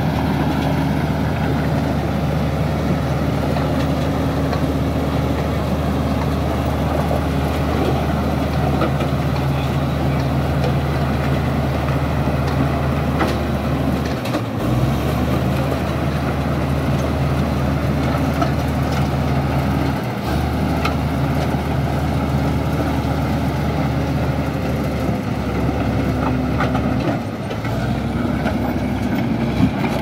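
Komatsu D85ESS crawler bulldozer's diesel engine running steadily under load as the dozer pushes boulders and mud. Its pitch shifts briefly a few times, about halfway through and again near the end.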